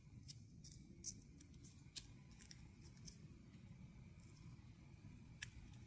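Near silence with a few faint, scattered ticks: steel tweezers picking at the edge of a thin 3M double-sided adhesive ring on its backing sheet.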